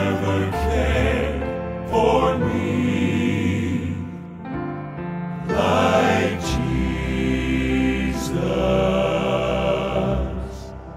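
Southern gospel male quartet singing a slow song in close harmony, with long held notes that swell and fade.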